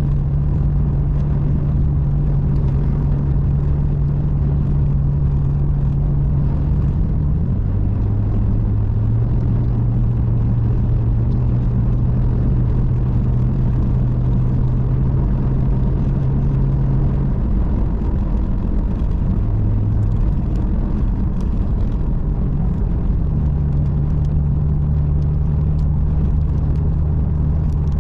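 Car engine running with a steady low hum and road noise; the hum drops in pitch about a quarter of the way through and climbs back near the end, as the engine speed changes.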